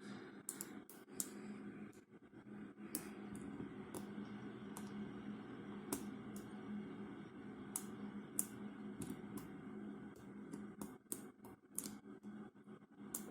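Hook pick and tension wrench working in the keyway of an ASSA Ruko padlock's five-pin 500 core during single-pin picking: irregular small metallic clicks and scrapes as pins are lifted one at a time, over a steady low hum.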